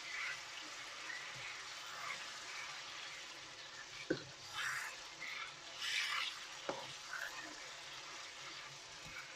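Chicken curry sauce sizzling in a pan as it is stirred, with a utensil scraping and two sharp knocks against the pan a few seconds apart.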